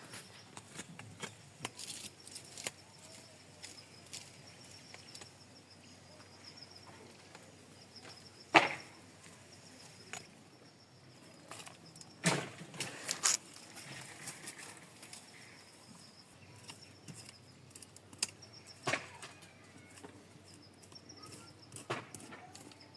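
A few separate sharp knocks and cracks of a wooden kind over a quiet outdoor background, the loudest about eight and a half seconds in and a pair about four seconds later.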